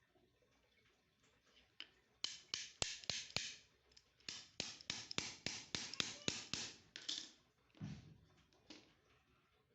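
Hand-tool work on a rusted metal kitchen tap: a run of quick scraping strokes, about three a second, with a few sharp clicks, lasting about five seconds, then a single duller knock.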